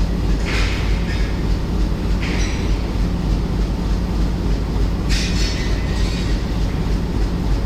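Indian Railways train running on the track: a steady low rumble with a constant hum, broken three times by short bursts of hissing wheel noise, the last with a faint squeal.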